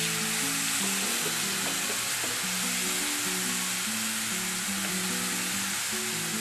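Marinated chicken breast sizzling steadily as it fries in a nonstick pan, with more pieces being laid in. Light background music of short plucked notes plays under it.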